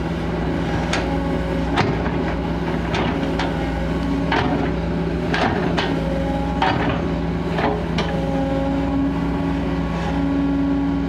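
Kobelco SK200 excavator's diesel engine running steadily, with a scatter of sharp knocks and clanks, about eight of them at irregular intervals.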